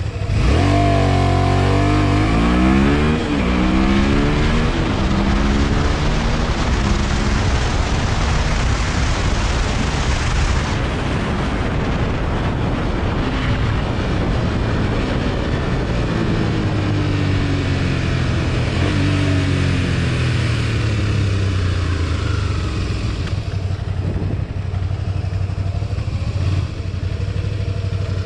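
1987 Honda VT250 Spada's V-twin on its stock exhaust, revving hard through the gears for the first few seconds, its pitch rising and dropping back at each upshift. Then mostly a steady rush of wind at speed over the engine note. Later the engine winds down through several falling downshifts.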